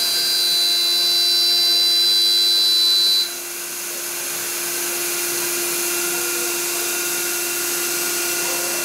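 CNC router spindle cutting into a wooden panel with its dust extraction running: a high whine over a steady machine hum. The whine stops about three seconds in, leaving the hum and the noise of the extraction.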